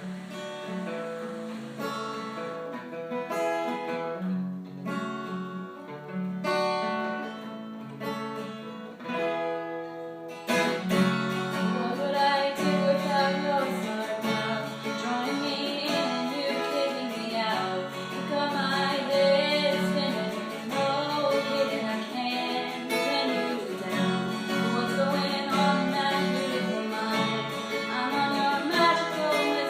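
Acoustic guitar playing a song: sparse picked notes at first, then about ten seconds in it fills out and gets louder, with strummed guitar and singing.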